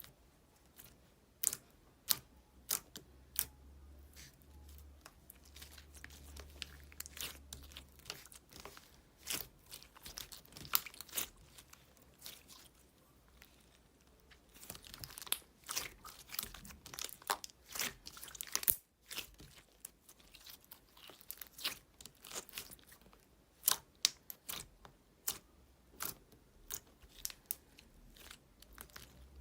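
Clear slime being squeezed, stretched and poked by hand, making irregular sharp clicks and small pops of trapped air, busier at times and sparse at others.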